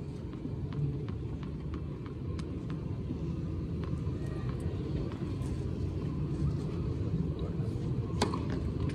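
Low steady rumble of a murmuring outdoor crowd, with a run of light ticks as the tennis ball is bounced on the hard court before the serve. About eight seconds in comes one sharp crack: the racket striking the serve.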